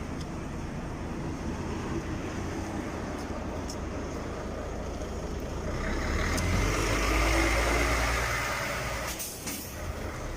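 Roadside traffic noise: a low steady rumble, with a heavy vehicle passing that swells to its loudest about seven seconds in and then fades.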